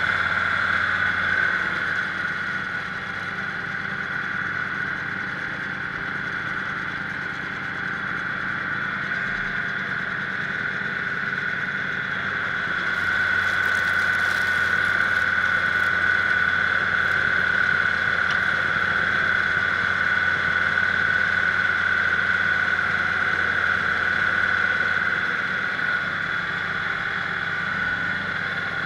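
Kubota diesel engine running steadily, with a steady high whine over the engine note, louder from about halfway through until near the end.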